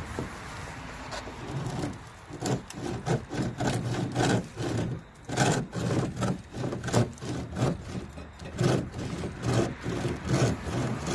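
Homemade bow saw, a steel blade held in a bent stick frame by key rings and hose clamps, cutting through a dead branch. Quick, even back-and-forth strokes start about two seconds in.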